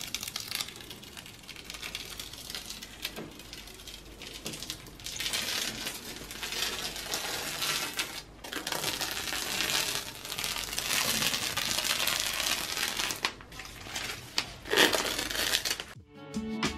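Painter's masking tape being peeled off a painted wall: a crackling rip in several long pulls with short breaks between them, the loudest near the end.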